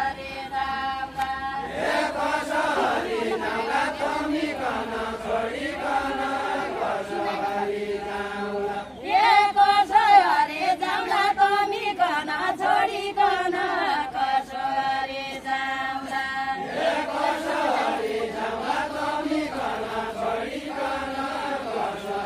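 A group singing a Deuda folk song without instruments: a slow, chant-like melody with long held notes. A louder new phrase begins about nine seconds in.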